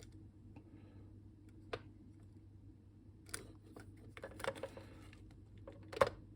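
Faint, scattered clicks and taps from handling plastic computer gear, the Datasette tape recorders and the duplicator board with its leads, over a low steady hum. The clicks come singly about two seconds in, a few together after three seconds, and one sharper one near the end.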